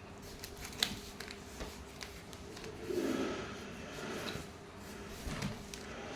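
Handling noises: scattered light clicks and knocks, with a louder rustling scrape lasting about a second around three seconds in.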